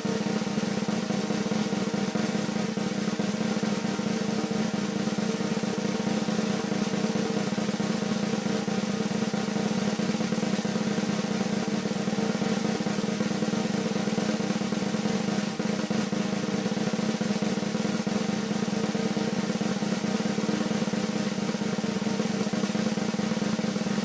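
Background music driven by a continuous rapid snare drum roll over steady sustained tones, at an even level throughout.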